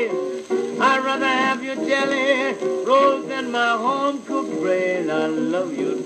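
Blues guitar solo from a 78 rpm record: single-note lines with notes bent up and down.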